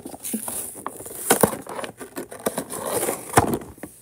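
Hands handling a clear plastic toy package, its plastic case clicking, crackling and scraping, with one loud click about three and a half seconds in.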